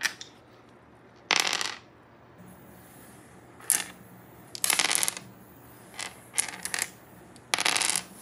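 Two small dice clattering as they are gathered and rolled again and again on a wooden surface. They come in about seven short bursts of quick clicks, some brief and some lasting about half a second.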